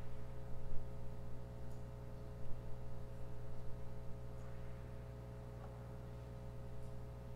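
Steady low hum with faint scattered rustles and clicks.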